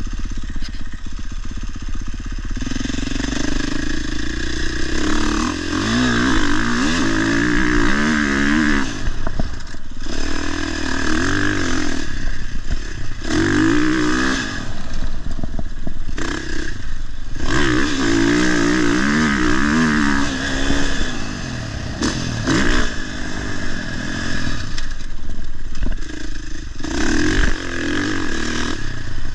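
Motocross bike engine being ridden hard around a track: repeated bursts of throttle in which the pitch climbs, then drops away as the throttle is shut off, about every two to four seconds.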